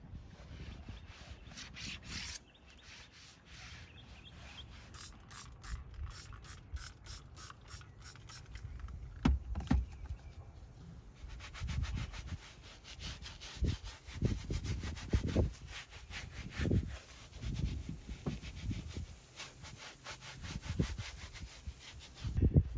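Stiff-bristled scrub brush scrubbing foamed cleaner into a leather-look centre console armrest in fast back-and-forth strokes, a dense scratchy rubbing. It is broken by occasional dull bumps and one sharper knock about nine seconds in.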